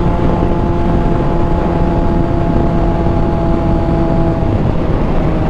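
Honda sport motorcycle cruising at steady highway speed: a steady engine drone under heavy wind rush on the microphone, the engine note dipping slightly about four and a half seconds in.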